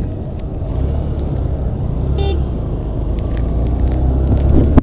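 Hero Xpulse 200T's 199.6 cc air-cooled single-cylinder four-stroke engine running while the bike rides along, with a short horn toot about two seconds in. The engine gets louder near the end.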